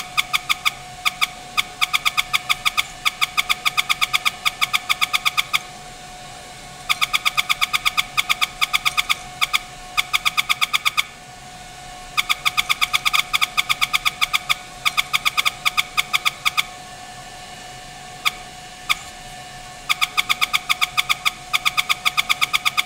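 Rapid, regular metallic clinks, each with a short ring, in runs of several seconds broken by brief pauses, over a steady faint hum. The sound is a steel strip being bent by hand against steel pins on a milling-machine table, heard sped up.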